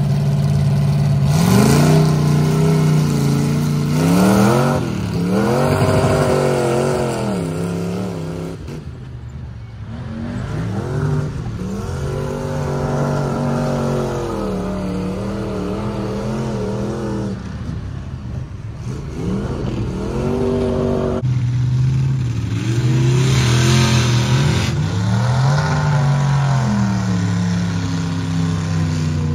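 Ford mud truck engine revving in repeated surges, its pitch climbing and dropping again and again, over a steady low engine drone.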